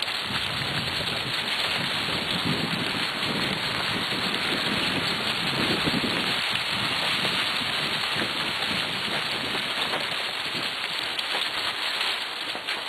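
Wheels of a dog-drawn cart rolling over a dirt track covered in fallen leaves: a steady rustling, crunching noise.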